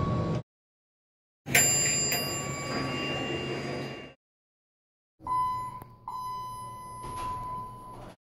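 Two separate elevator arrival chimes, each followed by silence: first a bell-like chime struck twice about half a second apart, ringing out over about two seconds; then an electronic chime, two beep-like tones of about the same pitch, the second held for about two seconds.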